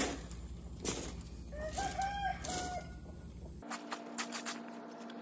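A rooster crows once, a short crow about one and a half to nearly three seconds in, among the scratchy strokes of a rake dragging over the dirt floor of a chicken run.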